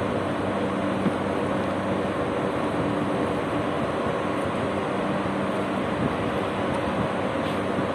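Steady city background noise: a continuous mechanical hum with several steady low tones and no change in level.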